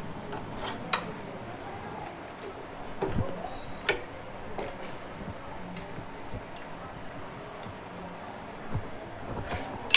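Scattered sharp metallic clicks and light knocks of a socket wrench loosening the 14 mm nut that holds a Hero Deluxe motorcycle's magneto rotor.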